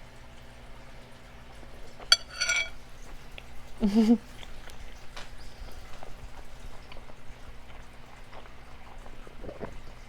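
A person chewing a very large mouthful of food with soft wet mouth clicks. About two seconds in there is a sharp click and a brief high squeak, and about four seconds in a short closed-mouth 'mmm'.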